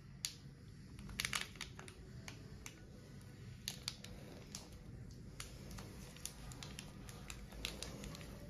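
Faint crinkling and small clicks of a liquid-filled plastic film sachet being squeezed in the hands to press the air out of it, with a brief cluster of crackles about a second in.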